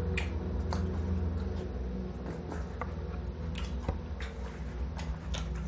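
Close-up mouth sounds of chewing crunchy raw banana stem: scattered small clicks and wet smacks, over a steady low hum.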